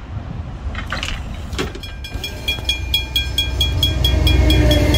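Level crossing bells ringing rapidly from about two seconds in, at about four to five dings a second. A diesel locomotive's engine grows louder under the bells near the end as the train approaches the crossing.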